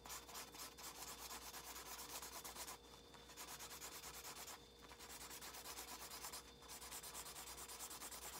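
A felt-tip marker scribbling back and forth on a paper coffee filter: quick scratchy rubbing strokes, several a second, in runs broken by three short pauses.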